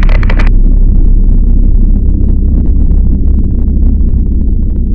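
Loud, steady low rumble with no clear pitch, with faint crackle above it.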